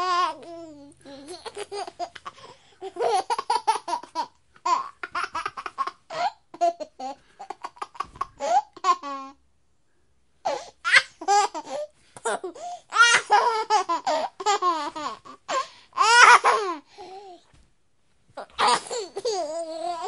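A baby laughing in repeated bouts of high-pitched giggles. The laughter breaks off for about a second midway and again briefly near the end.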